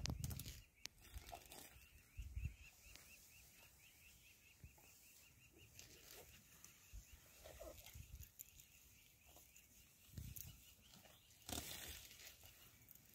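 Quiet bush ambience: a faint, rapid, high chirping repeats about four or five times a second throughout. A few low thumps come in the first couple of seconds, and a brief rustling burst comes near the end.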